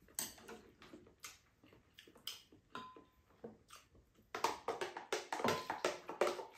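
Spoons and chopsticks tapping and scraping against ceramic bowls and a plastic food container: scattered clicks that thicken into a dense clatter about four seconds in, with one short ring near the middle.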